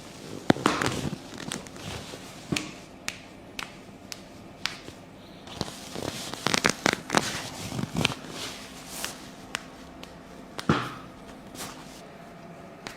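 Joint cracks and pops during a chiropractic back adjustment: a string of sharp clicks spread through, thickest around the middle, with some softer rubbing noise between them.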